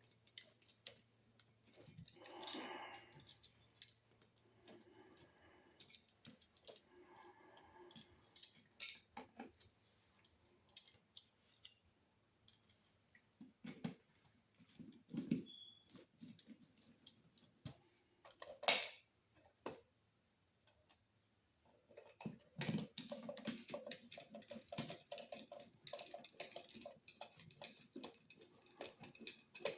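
Small hard clicks and knocks of an electrical wall receptacle, its plastic parts and hand tools being handled while the outlet is worked back into its box; a few sharper single clicks stand out, and about two-thirds of the way in a denser stretch of rapid clicking and scraping begins.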